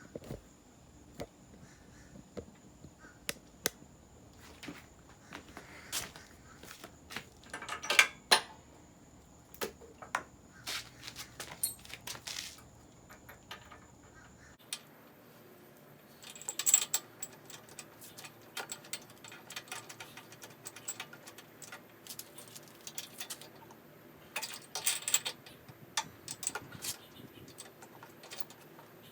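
Irregular metallic clicks, taps and rattles of hand tools and small engine parts being handled while the engine is reassembled after a spark check, with louder clattering clusters about eight seconds in, near the middle and near the end.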